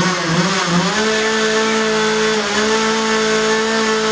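A small motor running at high speed with a steady pitch, rising slightly during the first second and then holding.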